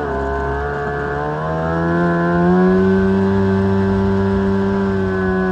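Engine of a homemade jet jon boat built on a WaveRunner hull, running steadily, then rising in pitch about a second or two in and holding at the higher speed.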